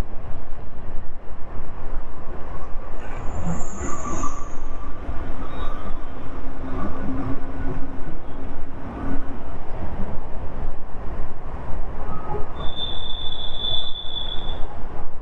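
Wind and road noise from a moving motorcycle, rushing steadily over the action-camera microphone. Two brief high-pitched squeals cut through it, one about three seconds in and one near the end.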